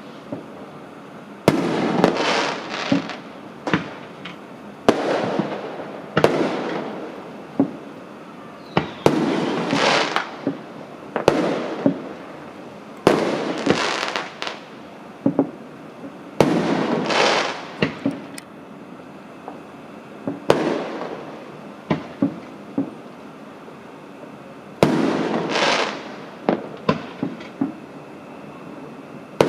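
Fireworks going off: about a dozen sharp bangs, each followed by a crackling hiss that fades over a second or two, with scattered single pops in between. The bursts come every second or few, with a quieter spell of single pops past the middle.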